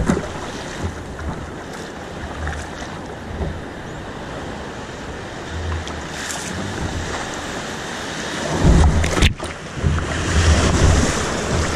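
Ocean surf washing steadily, with wind buffeting the microphone; the buffeting grows heavier about three-quarters of the way through.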